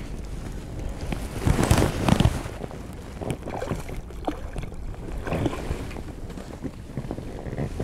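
Wind buffeting the microphone and sea water slapping against a small boat's hull, with a louder rush about a second and a half in and a few light knocks.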